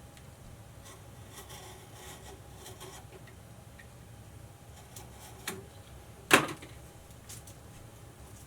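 Hand tools and electrical cable being handled: faint scattered clicks and rustling, then two sharp clicks about five and a half and six and a half seconds in, the second one the loudest, with a short ring.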